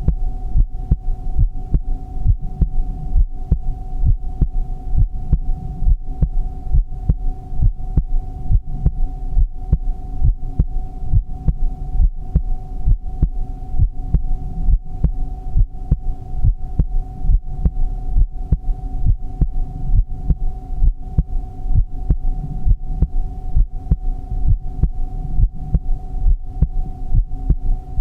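Heartbeat beating at a steady, regular pace, over a constant low hum.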